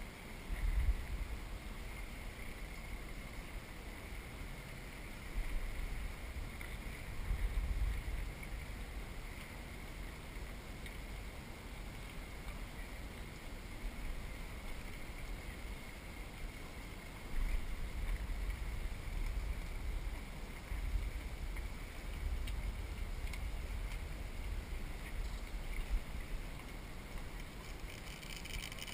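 Low rumbling gusts of wind on the microphone, coming and going, over quiet open-water ambience around a kayak, with a faint steady high whine.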